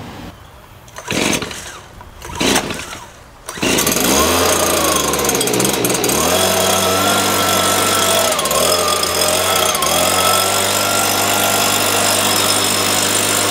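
Stihl BG 56 C two-stroke leaf blower started cold on choke: two quick pulls of the starter cord, then the engine catches about three and a half seconds in and runs loud and steady. It stumbles briefly near six seconds and dips twice more.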